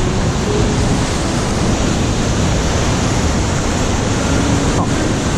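Ocean surf breaking and washing over a rock ledge: a loud, steady rush of whitewater.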